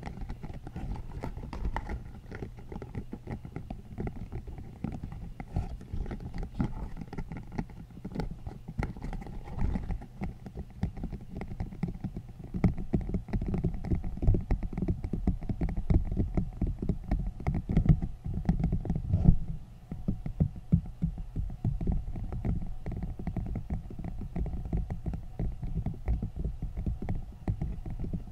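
Spiky green silicone sleeve squeezed and rubbed directly over a foam-covered microphone: dense, close rubbing and rapid tapping, heavy in the low end, growing louder for a while in the middle.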